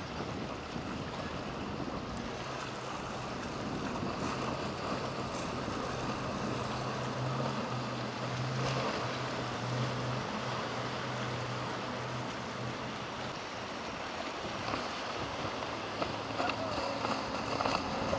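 Motorboat engine running as a boat passes, its low hum building and then fading over about ten seconds, over a steady wash of waves and wind noise on the microphone. A higher wavering whine comes in near the end.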